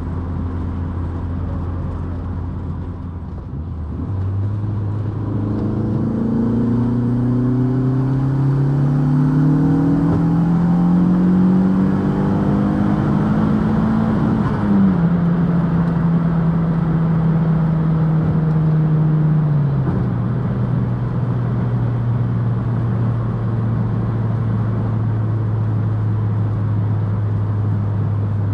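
Mk2 Golf's big-turbo 1.8T 20-valve four-cylinder pulling hard in a road-tuning boost run, revs climbing steadily for about ten seconds with a faint high whine rising alongside. About halfway through the revs drop sharply with a brief pop, then settle and drop again to a steady cruise.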